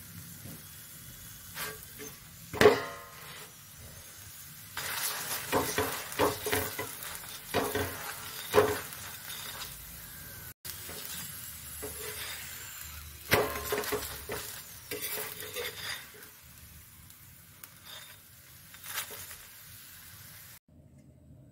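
A paratha frying on a hot iron tawa, with sizzling and a series of clinks and scrapes of a utensil against the pan as the flatbread is turned and pressed; one sharp clink about two and a half seconds in is the loudest. The sound cuts off sharply near the end.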